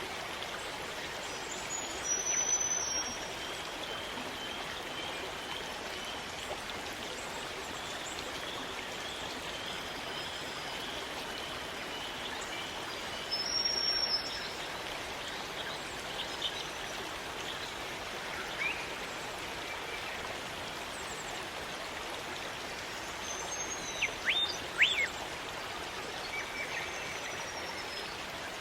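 Rainforest stream running steadily, with birds calling over it: a high call about two seconds in, another about halfway, and a quick cluster of sharp falling calls near the end.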